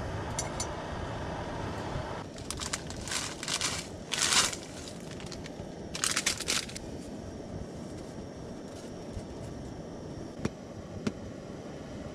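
A plastic packet crinkling and tearing in several crackly bursts, loudest about four seconds in, with a few light clicks near the end. Under it runs the steady hiss of a small gas canister stove heating a pot of water.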